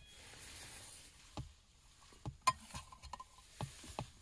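A handful of light clicks and knocks of small objects being handled, spaced unevenly, over a faint background.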